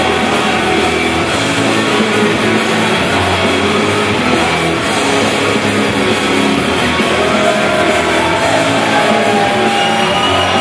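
Loud rock music with electric guitar, playing steadily without a break.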